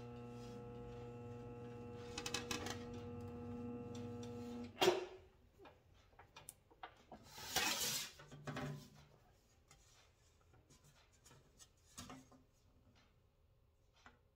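Motor-driven bead roller running with a steady hum as it rolls a border into sheet metal, then stopping with a knock about five seconds in. A brief scraping rub of the sheet on the bench and a few light knocks and clicks follow as the work is repositioned.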